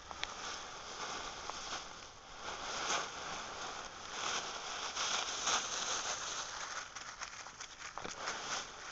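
Dry fallen leaves crunching and rustling as two dogs, a Weimaraner and a small dog, wrestle and roll in a leaf pile, a continuous run of crisp crackles that swells and eases with their movements.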